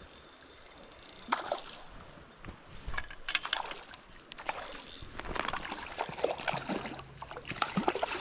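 Hooked brown trout splashing and thrashing at the surface of a creek as it is reeled in to the net, over the steady rush of the stream. The splashes come thicker and louder in the second half.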